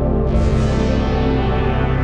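Slow ambient background music with held synthesizer-like tones. About a third of a second in, a bright shimmering note enters and fades away over about a second.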